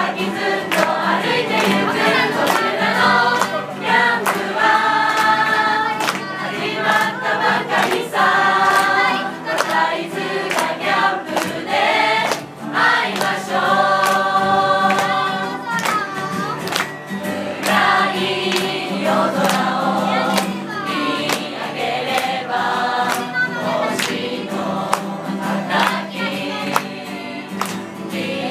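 A large mixed group of young people singing a camp song together, with acoustic guitar accompaniment.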